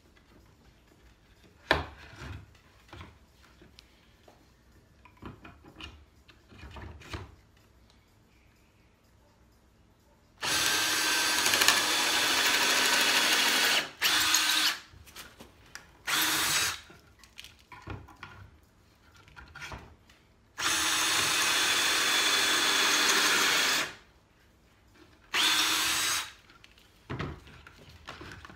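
Ryobi cordless drill boring pocket holes through a Kreg pocket-hole jig into a wooden board. It runs twice, for about three seconds each time, about ten and twenty seconds in, and each run is followed by short bursts. A few knocks and clicks come before the first run.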